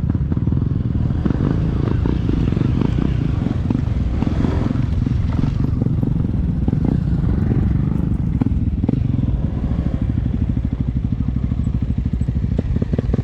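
Motorcycle engine running while riding, a steady low rumble. From about ten seconds in it settles into a slower, even pulsing.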